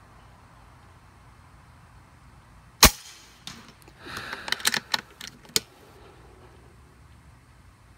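A single sharp shot from a .25 calibre Rapid Air Weapons pre-charged pneumatic air rifle about three seconds in, followed over the next two seconds or so by a run of smaller clicks and rattles.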